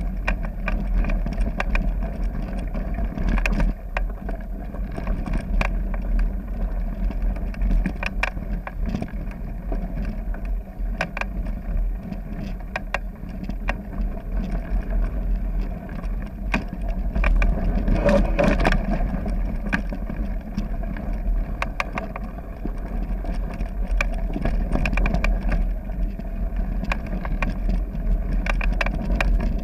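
Mountain bike riding over a gravel forest trail, heard from a camera carried along on the ride: a steady rumble of tyres on gravel and wind on the microphone, with frequent sharp clicks and rattles from bumps. A cluster of louder knocks comes a little past halfway.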